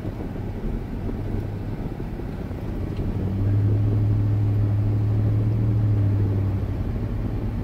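A 2007 Dodge Durango driving down the road, heard from inside the cabin: a steady road and engine rumble. A louder low drone of even pitch comes in about three seconds in and drops away again about three seconds later.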